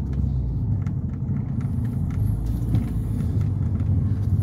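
Steady low rumble of a moving car heard from inside the cabin: engine and tyre noise while driving along a road.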